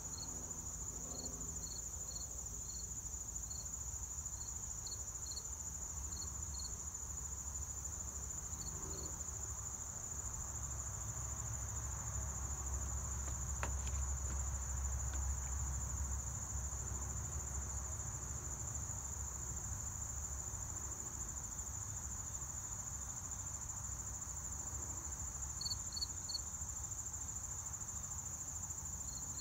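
Steady, high-pitched insect chorus, joined by short high chirps in small groups, with a low rumble swelling in the middle.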